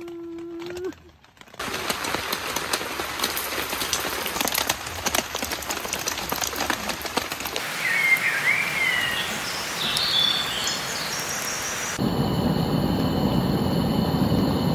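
Steady rain falling, pattering and dripping into puddles, with a bird chirping a few times about eight to ten seconds in. About twelve seconds in this gives way to the steady hiss of a gas camp stove burner.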